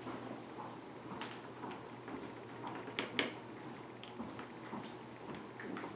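A few faint, light taps and clicks of small glass and ceramic craft pieces being handled, the clearest about a second in and a pair around three seconds in.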